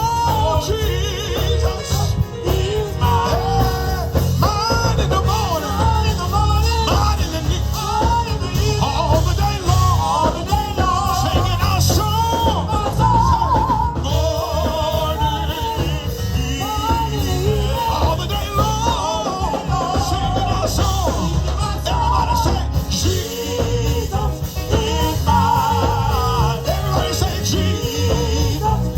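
Gospel band playing Pentecostal praise music: organ runs over drums and electric bass, with no words sung.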